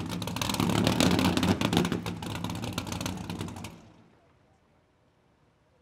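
Skater 438 race boat's 750 hp Sterling engines running at a rough, rapid-firing idle, then cutting off about four seconds in, leaving near silence.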